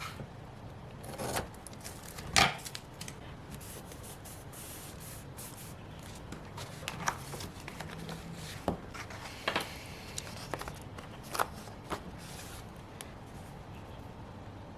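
Paper-crafting handling sounds at a desk: scattered light taps, clicks and rustles as stickers, washi tape and paper are handled and pressed onto a planner page, with one sharper tap about two seconds in.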